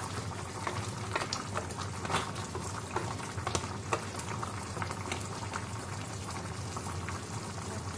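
Crab curry bubbling at a steady boil in an open clay pot, with many small scattered pops, while a wooden spoon stirs through it. The curry is being reduced uncovered to thicken.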